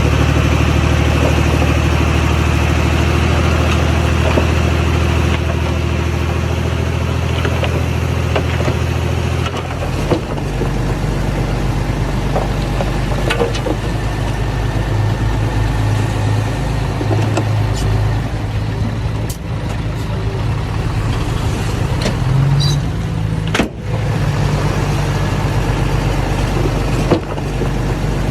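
Diesel engine of earthmoving machinery running steadily, its note changing to a lower pattern about ten seconds in, with a few brief clanks later.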